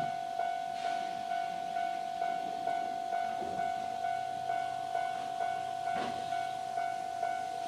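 Japanese level-crossing alarm ringing its electronic bell at normal volume, an even two-tone-like clang repeating about twice a second, with a low hum coming in about halfway.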